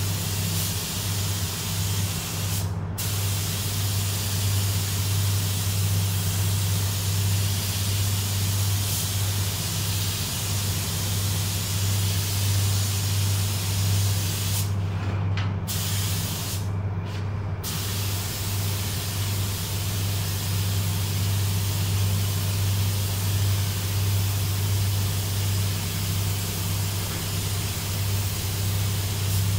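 Compressed-air paint spray gun hissing steadily as 2K clearcoat is sprayed, with the trigger let off briefly about three seconds in and twice around the middle. A steady low hum runs underneath.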